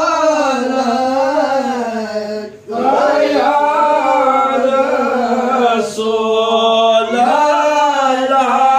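Men's voices chanting a devotional Islamic song, with long, held notes that waver up and down in pitch; a short pause for breath about two and a half seconds in.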